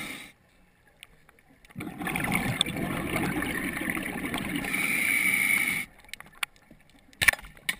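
A diver's exhaled breath bubbling underwater: a rough rushing, gurgling burst that starts about two seconds in, lasts about four seconds and stops abruptly, followed by a few faint clicks.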